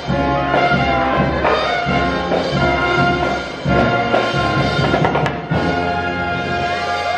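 Marching brass band playing a lively tune: trumpets, trombones, saxophones and a sousaphone over a steady drum beat.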